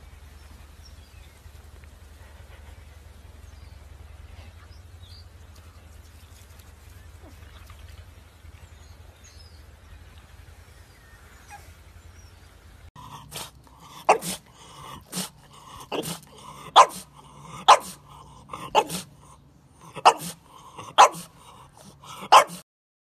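French Bulldog barking, about nine short sharp barks roughly a second apart, after a faint low rumble.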